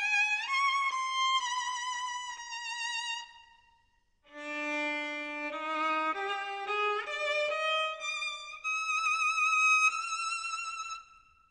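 Background music: a slow solo melody with vibrato that breaks off about four seconds in, then resumes lower and climbs to long held high notes.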